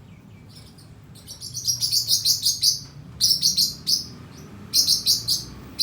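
Small pet bird chirping in quick runs of short, high chirps, starting about a second in and pausing briefly twice.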